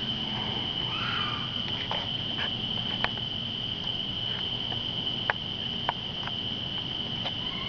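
Night insect chorus in woodland, a steady high-pitched drone, with a scattering of sharp clicks or snaps and a faint brief call about a second in.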